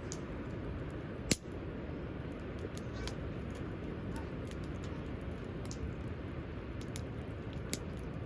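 Wood campfire crackling, with scattered sharp pops, the loudest about a second in and another near the end, over a steady low rumble.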